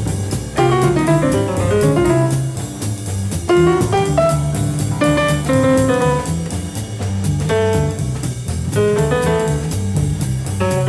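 Small jazz group playing live: an acoustic grand piano solos in quick runs of notes over a walking double bass and a drummer's steady cymbal beat.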